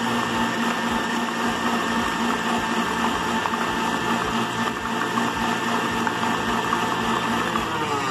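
KitchenAid stand mixer running at medium speed, its wire whisk beating liquid eggs, sugar and oil in the steel bowl: a steady motor whine with the whisk churning the batter. Near the end the whine falls in pitch as the mixer slows.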